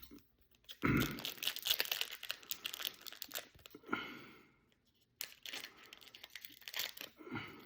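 Trading card pack wrappers crinkling and being cut open, in two runs of irregular crackling with a short pause between them.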